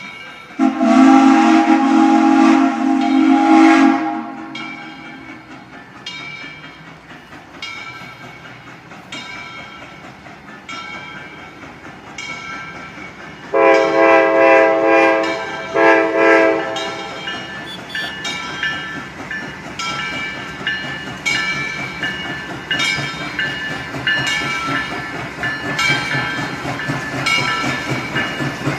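Steam locomotive whistle: one long blast about a second in, then two shorter blasts near the middle, over the steady chuff of the engine's exhaust, whose beats come faster toward the end.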